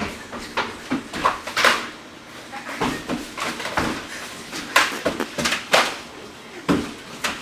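Irregular knocks and scuffs, roughly one every half second to a second, with the loudest near the middle.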